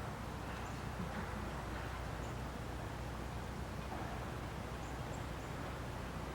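Outdoor ambience: a steady low rumble and hiss, with a few faint, short high chirps scattered through it.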